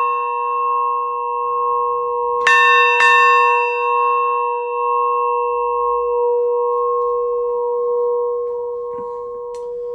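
A large ship's bell, a full-size cast copy of the Lutine bell, struck twice about half a second apart some two and a half seconds in, over the ring of earlier strokes. Its steady ring then carries on, slowly fading.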